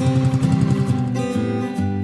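Background music with strummed acoustic guitar.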